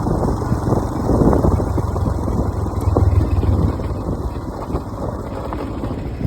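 A vehicle driving over a rough off-road track: steady engine and road rumble with frequent knocks and rattles from the bumps, and some wind on the microphone.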